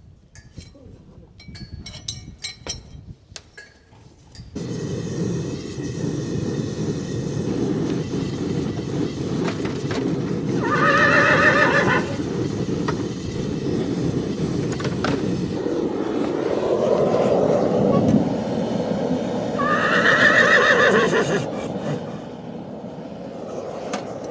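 A horse whinnies twice, each call a second or two of high, quavering neighing, about ten seconds in and again near twenty seconds. A steady low rumbling noise begins suddenly about four seconds in. Light clicks and taps come before it.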